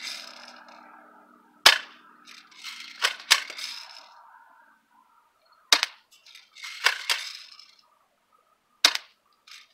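A spring-powered pump-action airsoft shotgun, a Mossberg 500 Chainsaw replica, fires three sharp snapping shots a few seconds apart. The pump is worked with a short clacking rattle about a second after each of the first two shots, re-cocking the spring for the next shot.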